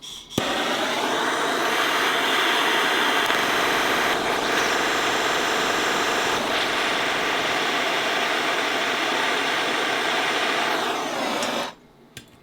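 Gas torch lit with a click and burning with a loud steady hiss for about eleven seconds, heating a seized wheel lug nut held by permanent threadlocker, before it cuts off suddenly.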